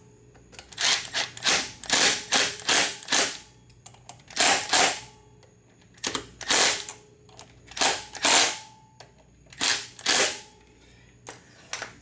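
Cordless impact driver hammering in a string of short bursts, running down the bolts that hold a new stator to the aluminium case of a 49cc 139QMB scooter engine.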